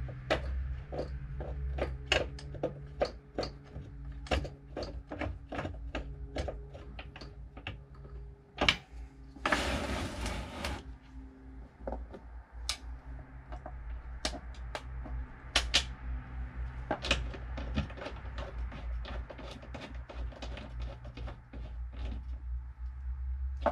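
Irregular metal clicks and clinks of a ratchet, sockets and nuts being worked onto the bolts of a seat swivel base, two or three a second. About ten seconds in there is a rasping burst lasting a second or so. A low steady hum runs underneath.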